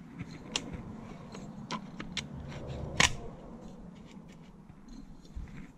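Metal parts of a BMW K100 alternator being handled and fitted back together: a string of small clicks and scrapes as the housing halves are slid over the rotor, with one sharper knock about three seconds in.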